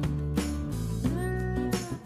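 Background music led by guitar, with held notes and repeated strums.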